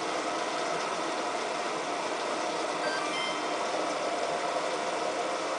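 Samsung WF8804RPA front-loading washing machine running at the start of its main wash, a steady, even whooshing noise with a faint hum.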